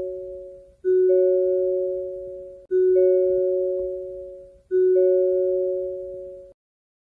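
Hyundai car door-open warning chime: a soft two-note tone, low then higher, ringing and fading away, repeated three times about two seconds apart before it stops. The chime signals that a door is open.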